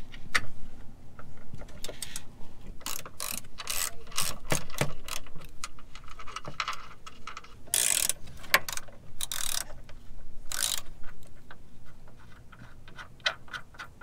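Hand socket ratchet clicking in quick irregular runs as bolts are backed out, with a few longer rasping bursts of fast clicks midway through.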